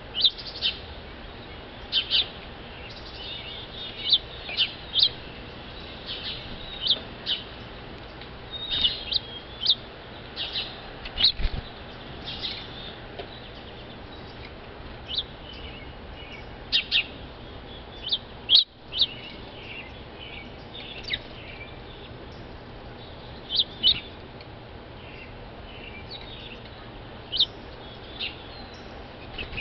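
Small songbirds at a seed feeder chirping: many short, sharp, high chirps with a few brief warbling phrases, coming irregularly in clusters over a steady background hiss.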